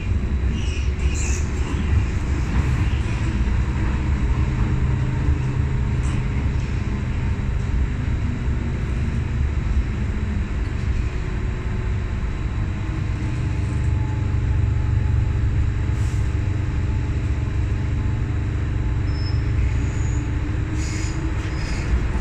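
MTR M-Train electric multiple unit running along the track between stations, heard inside the passenger car: a steady low rumble of wheels on rails with a low traction-motor hum.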